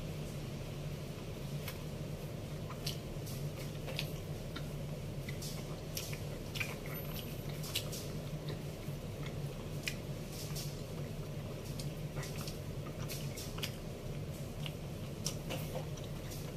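Close-up chewing of bread: irregular wet mouth clicks and smacks throughout, over a steady low hum.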